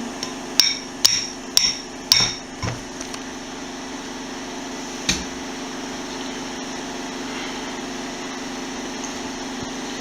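A spoon knocking against a cereal bowl: five sharp clinks with a short ring, about two a second, in the first three seconds, then one more about five seconds in, over a steady low hum.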